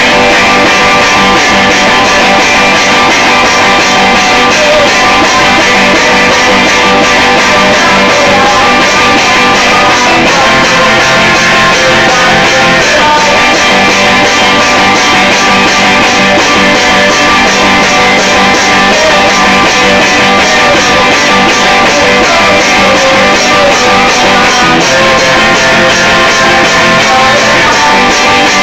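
Very loud punk-rock music with guitars strummed over a steady beat, starting abruptly just before and playing without a break.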